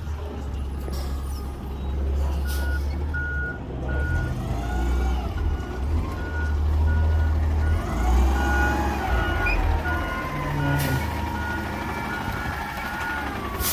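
Side-loader garbage truck with its engine running low and steady while its backup alarm beeps at an even pace, starting a couple of seconds in. Rising and falling whines sound over it in the middle.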